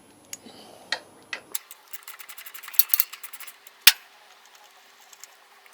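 Hand tools working on a motorcycle's rear brake caliper while its pins are undone: scattered metallic clicks, a quick run of clicks about halfway through, then one sharp loud click.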